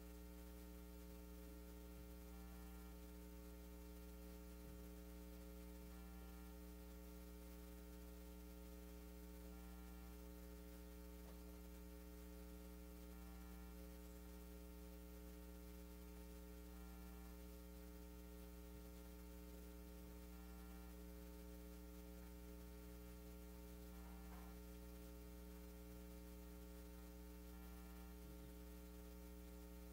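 Near silence apart from a steady, low electrical mains hum.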